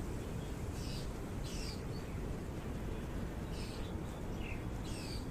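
Several short, high bird chirps, each falling in pitch, over a steady low rumble.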